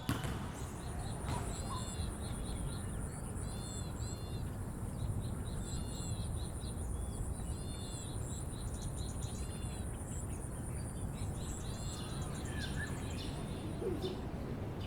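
Outdoor ambience: an insect trills steadily at a high pitch while a bird repeats a short phrase of curved chirps every second or two, over a low, steady distant city rumble.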